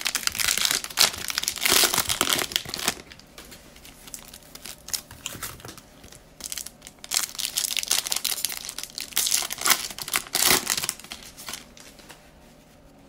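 Plastic cello trading-card pack wrapper being torn open and crinkled by hand, loudest in the first three seconds. Softer crinkles and rustles follow, with a few louder bursts, as the cards are pulled from the pack.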